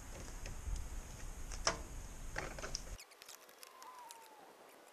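A few sharp clicks and knocks from hand work on a boat's stiff rubber rub rail, over a low rumble. After a cut the sound turns quieter, with a faint falling whistle near the end.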